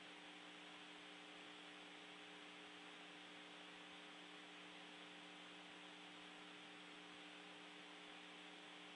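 Near silence: a faint steady electrical hum with low hiss on the open air-to-ground audio channel between transmissions.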